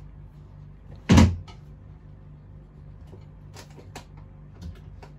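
A single loud thump about a second in, followed by a few faint clicks, over a steady low hum.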